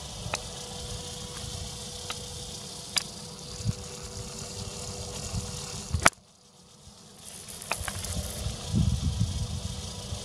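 Motor-driven wheel of an erosive machine sweeping over loose sand: a steady hiss and grating of sand under a steady motor hum, with a low rumble and scattered clicks. A sharp click about six seconds in, after which the sound drops away for about a second before the hiss and rumble return.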